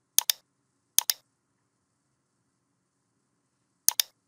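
Computer mouse button clicking: three quick double clicks spread over a few seconds, with dead silence between them.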